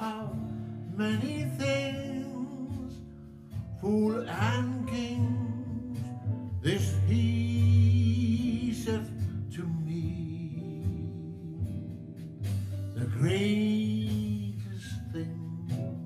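Music: a man's voice singing long, wordless held notes with vibrato over an acoustic guitar accompaniment.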